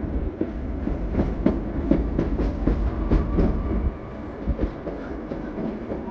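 Steam train's passenger car rolling along the track: irregular clacks and knocks from the wheels and car over a low rumble, the rumble easing off about four seconds in.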